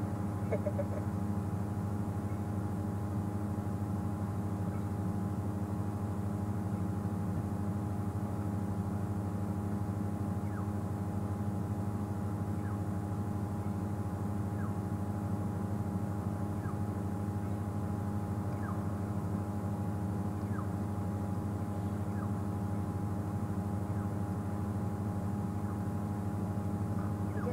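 Steady low mechanical hum at a constant pitch, with a few faint, scattered short chirps or ticks.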